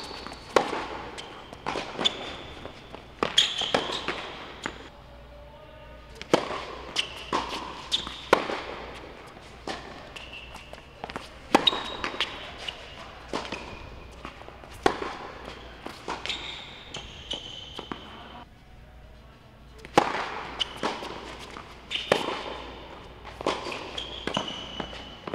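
Tennis rallies on an indoor hard court: racket strings striking the ball and the ball bouncing, heard as sharp cracks in quick succession, with short high squeaks from sneakers on the court surface. The hitting stops in short pauses between points, three times.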